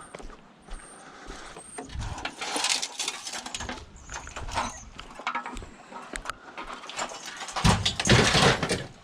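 Scrap being handled and loaded: bouts of rattling and clattering with sharp knocks, a louder bout near the end.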